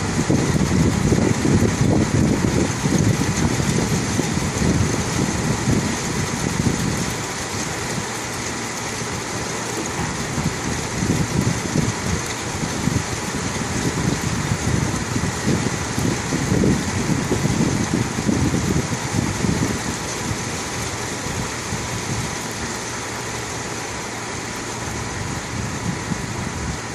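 Heavy rain pouring down in a steady hiss, with an uneven low rumble underneath that swells in the first few seconds and again around the middle.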